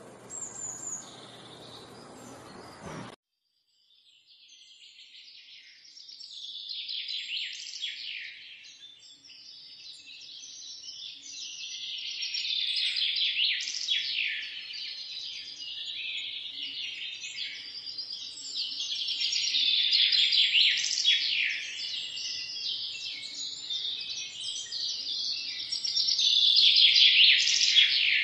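A flock of small birds chirping and chattering: many quick overlapping calls, growing louder toward the end. The first three seconds hold a hissier passage with a single high chirp, which cuts off abruptly before the chorus begins about four seconds in.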